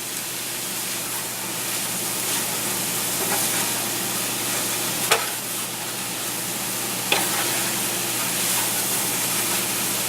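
Green beans and bacon sizzling steadily as they fry in bacon grease in a pan while being stirred, with two sharp clicks, about halfway and again two seconds later.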